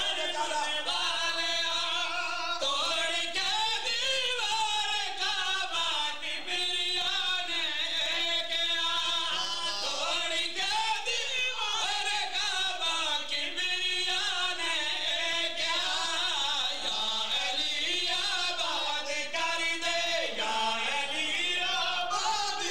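A group of men's voices singing a devotional mourning chant together. Long notes are held and bend in pitch, with no instruments heard.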